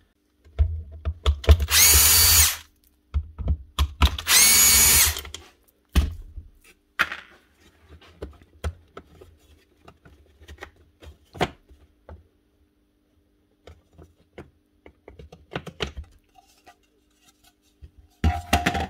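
A cordless screwdriver or drill-driver spinning screws out of a plastic housing in two short runs, each speeding up as it starts, followed by scattered clicks and knocks of the plastic casing being worked apart.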